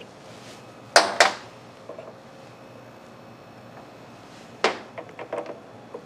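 Metal tools being handled at a stopped mini lathe: two sharp metallic clanks about a second in as the chuck key is finished with, then another clank and a few lighter clinks near the end as steel tool-post parts are picked up and handled.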